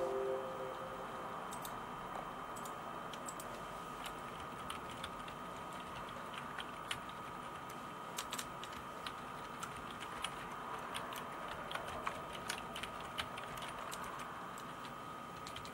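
Typing on a Micronics MANIC KM330 wireless slim keyboard: its low-profile keys are pressed in an irregular run of short clicks, a little busier in the second half.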